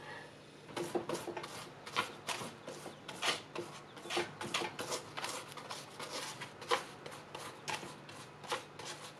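Pastry brush dabbing and stroking oil over crisp, puffed roast pork belly crackling, giving a dry, crackly scratching in short irregular strokes, about two or three a second.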